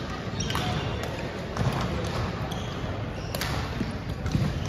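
Badminton rally: a few sharp cracks of rackets striking the shuttlecock, with brief squeaks of shoes on the hardwood court and a din of chatter in a gym hall.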